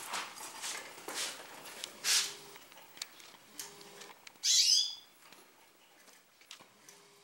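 A caged finch gives one short, bright chirp about four and a half seconds in, after a few soft rustles in the first two seconds.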